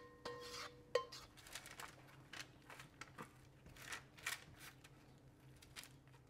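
Kitchen spatula scraping and tapping as sticky, sauce-coated potato sticks are spread out on a baking tray lined with baking paper. Faint, irregular scrapes and taps, with a ringing metal tone that stops with a sharp knock about a second in.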